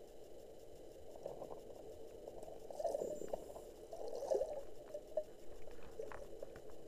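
Muffled gurgling and sloshing of shallow water heard underwater through a submerged camera's housing, swelling twice in the middle, with a few faint ticks.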